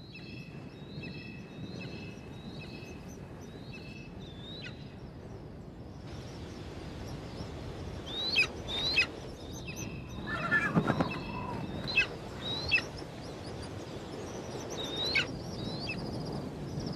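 Juvenile black eagle (Verreaux's eagle) begging at the nest: a run of short, high, evenly repeated calls, then after a pause a series of sharp, high calls that slide steeply down in pitch, mixed with rising calls.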